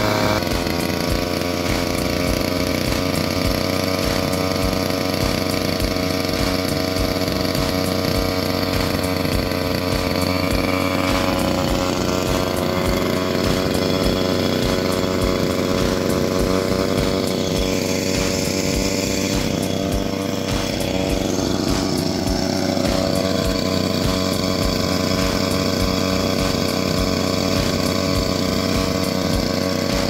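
Small two-stroke petrol engine running steadily at high speed, driving an air-conditioner fan motor used as a generator under the load of an electric water pump; its pitch sags and recovers slightly a few times.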